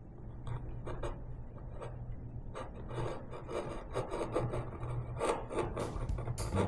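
A hand tool rubbing across wood in repeated back-and-forth strokes, as in smoothing a wooden joint by hand. The strokes come quicker and louder toward the end.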